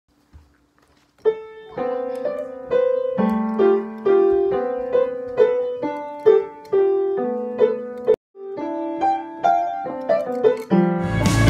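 Upright piano played one note at a time: a simple, slow melody of single struck notes, each left to ring, starting about a second in with a brief break near the middle. Just before the end, louder background music cuts in.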